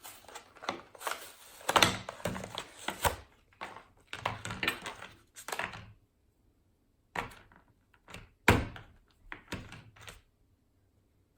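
Plastic slime packaging being handled and worked at: irregular rustling, crinkling and clicks, then after a short pause a few sharp knocks, the loudest about eight and a half seconds in.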